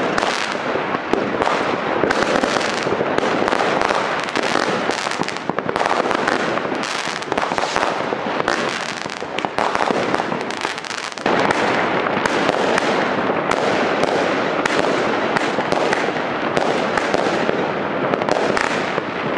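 Fireworks going off without a break: a dense, unbroken crackle of many bangs and bursts, easing briefly about eleven seconds in and then picking up again.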